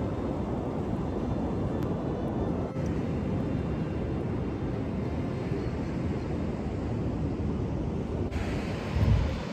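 Wind buffeting the microphone on an open beach: a steady low rumble with the wash of breaking surf beneath it, and one louder gust thump near the end.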